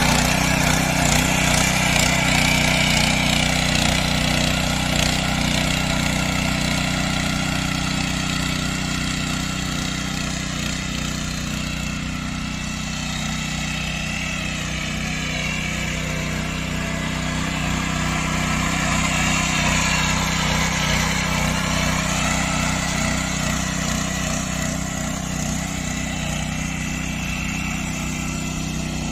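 Small engine of a motorcycle-fronted power weeder running steadily while the tiller works the soil.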